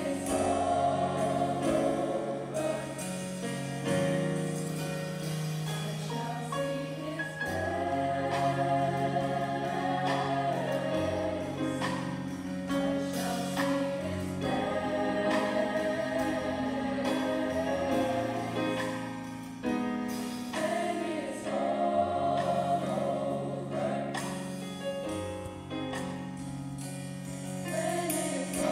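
Gospel choir singing sustained chords in harmony, backed by keyboard and a drum kit with cymbal hits.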